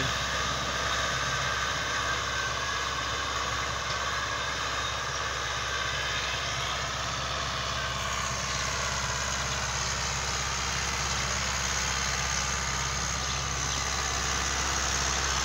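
Euro Ford 5880 tractor's diesel engine running steadily under load as it pulls a fully opened disc harrow through tilled soil.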